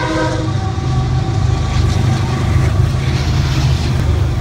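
BNSF coal train passing close by: the last of its diesel locomotive's horn chord dies away about half a second in, leaving a loud, steady low rumble.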